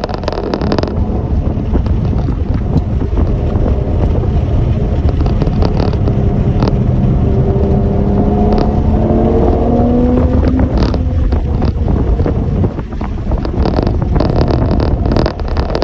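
Motor vehicle engine noise with a heavy, muddy low rumble. An engine note rises in pitch about halfway through, as if accelerating, and a few brief clicks follow.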